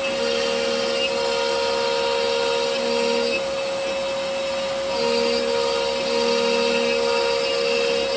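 CNC router spindle whining steadily as its bit mills maze channels into a wood panel. The cutting sound shifts every couple of seconds as the bit changes direction and load.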